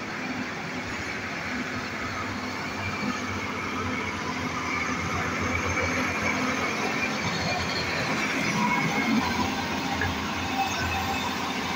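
Diesel engines of Hyundai and Hitachi crawler excavators running steadily while the machines dig in mud and water.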